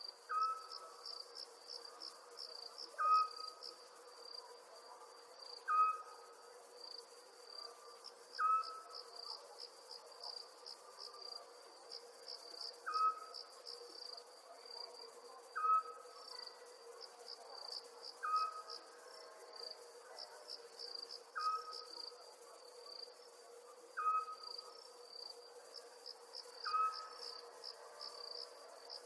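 Night ambience of crickets chirping in a steady pulsing chorus. A short, clear call comes back about every two and a half to three seconds.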